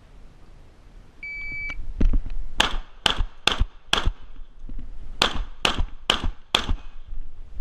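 Shot-timer start beep, then a Winchester SX4 semi-automatic shotgun firing eight shots in two quick strings of four, about half a second apart, with a pause of about a second between the strings.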